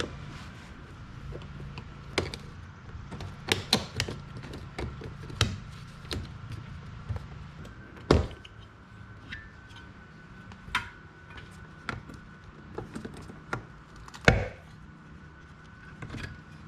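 Irregular clicks, taps and knocks of hand tools and metal and trim parts as a car door's interior is taken apart, with the sharpest knocks about eight and fourteen seconds in.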